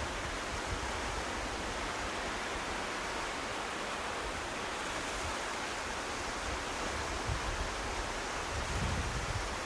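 Steady wash of sea surf and wind along the shore, with wind buffeting the microphone in irregular low rumbles that are strongest near the end.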